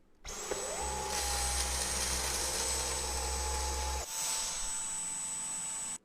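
A cordless stick vacuum's brushless motor switched on, its whine rising as it spins up and then running steadily with a high-pitched whistle. The sound changes about two-thirds of the way through, losing its low hum, and then cuts off abruptly when the vacuum is switched off.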